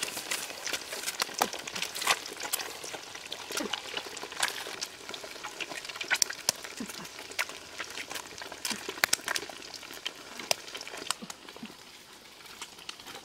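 Eggs frying in oil in a steel wok over a wood fire: a steady sizzle with frequent sharp pops and crackles, a little quieter near the end.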